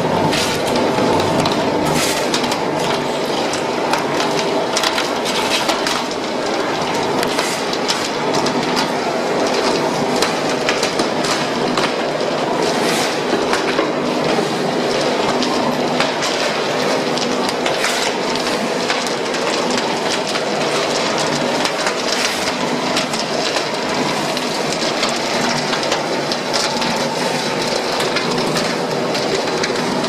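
Horizontal rotary carbonization furnace machinery running: a steady motor and gearbox hum with continuous irregular rattling and clatter from the turning drum and its drive.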